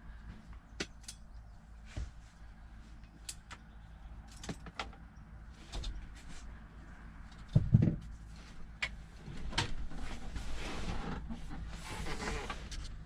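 Clicks, knocks and rustling of hands and tools working at a truck's gear shift stick and its fittings, with one heavier thump about eight seconds in and busier handling noise near the end.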